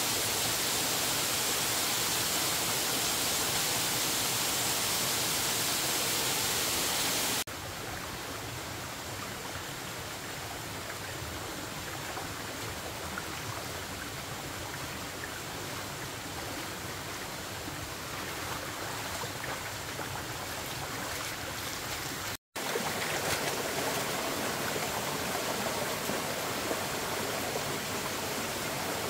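Steady rushing noise with no distinct events. It drops abruptly to a quieter, duller hiss about seven seconds in, cuts out completely for a moment about two-thirds of the way through, then comes back louder.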